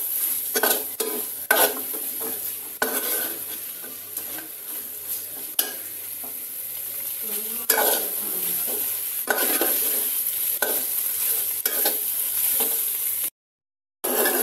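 Beef curry sizzling and frying in a metal pan as it is stirred, with the spoon scraping and knocking against the pan at irregular intervals; the gravy is being cooked down until the beef is dry. The sound cuts out briefly near the end.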